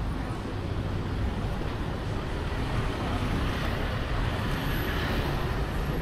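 Street traffic noise from vehicles passing on a busy seafront road. It swells briefly about three to five seconds in as something drives close by.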